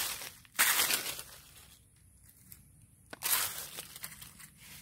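Dry fallen leaves crunching and rustling in three short bursts, at the start, about half a second in, and just past three seconds in, as the leaf litter is scraped through to find fallen coffee cherries.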